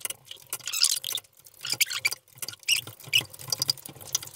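A long breaker bar and socket working the cylinder head bolts of a 3.0 SDV6 V6 diesel loose: a rapid, irregular run of squeaks and clicks as the bolt and tool creak under the pull.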